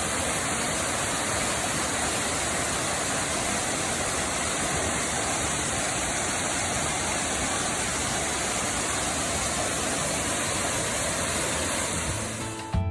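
Catawba Falls waterfall: a steady, even rush of falling water, fading out near the end.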